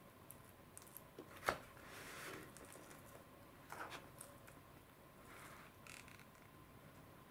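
Plastic spoon cutting and scooping omelette and rice in a plastic bento tray: a sharp click about one and a half seconds in, then soft, faint scrapes and squishes.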